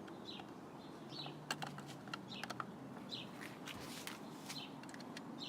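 Faint short bird chirps repeating about once a second, with scattered small clicks and taps of plastic mouse parts being handled.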